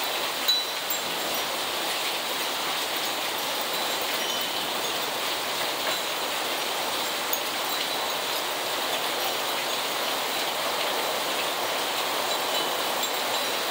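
Heavy rain pouring down steadily on a yard and street, with a few sharp taps of drops striking close by.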